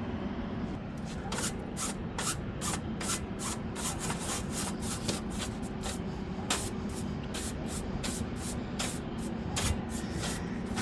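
Quick repeated rubbing strokes, about two to three a second, over a steady low hum.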